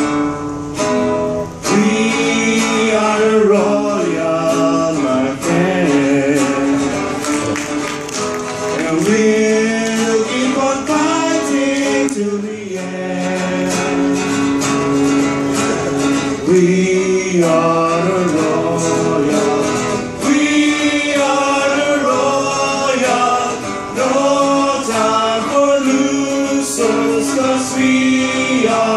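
Live mariachi-style song: several men singing together, accompanied by strummed acoustic guitars.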